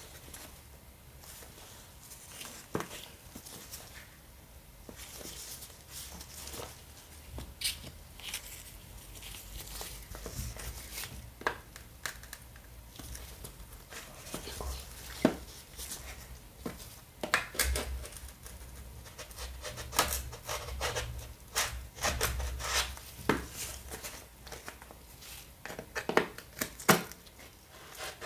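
Cardboard smartphone box handled close to the microphone by gloved hands: scattered taps, clicks and scrapes of glove and fingers on the box. The handling is sparse at first and grows busier after about ten seconds.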